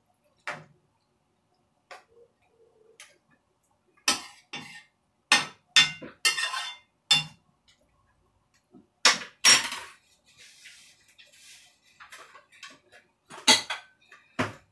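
Metal spoon clinking and scraping against a frying pan while stirring curry, in a dozen or so short, separate strokes with quiet gaps between.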